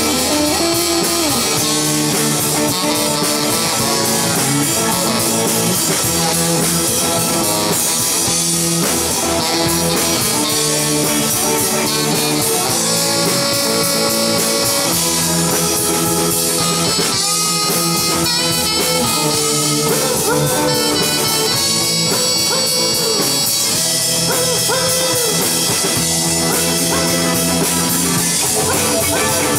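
Live rock-blues band playing an instrumental passage, with electric guitar and drum kit and a saxophone playing along.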